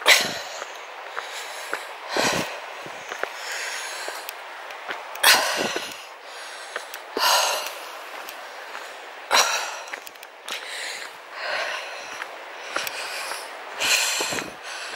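A walker breathing heavily from the exertion of climbing, a loud breath about every two seconds.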